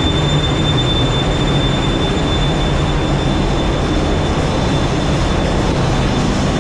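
Loud, steady machinery noise inside a container ship's engine room, a dense rumble of the running engines and auxiliary machinery with a thin constant high whine over it.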